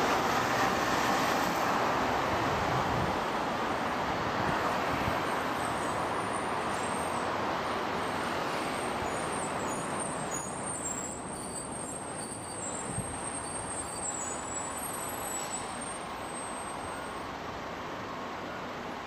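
Road traffic noise from a busy multi-lane city road: a steady rush of passing vehicles, loudest at first and slowly fading.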